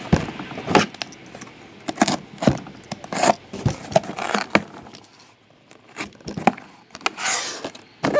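Cardboard shipping case being handled and opened by hand: scattered knocks, taps and scrapes of cardboard, with a longer rustle about seven seconds in as the flap is lifted.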